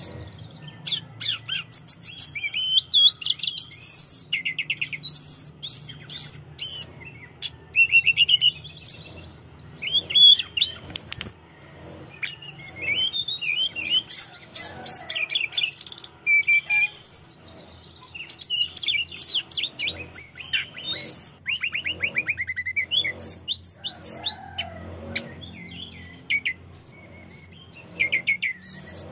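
Hill blue flycatcher singing almost without pause: quick runs of high trills and sweet whistled phrases, each a second or two long, broken by short gaps.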